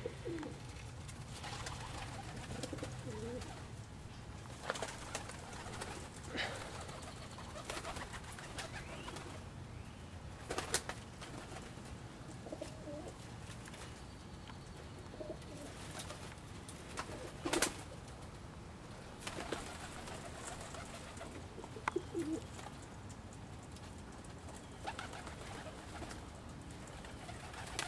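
Domestic pigeons cooing softly now and then, with a few sharp knocks, the loudest about two-thirds of the way through.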